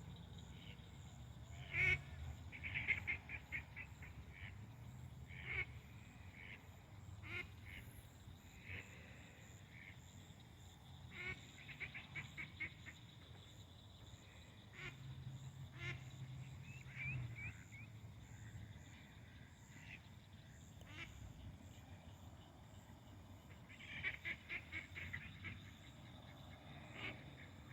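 A duck calling in runs of quick, wheezy quacks that sound like laughing, one run every few seconds.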